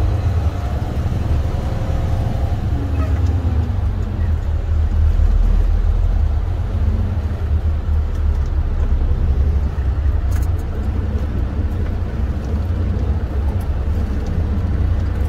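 Semi truck's diesel engine running at low speed as the truck rolls slowly and turns, heard from inside the cab as a steady low rumble.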